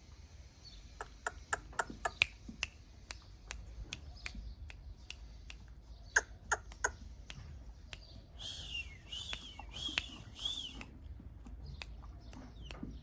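Irregular sharp clicks and knocks throughout, with a bird giving four harsh calls in a row about two-thirds of the way through.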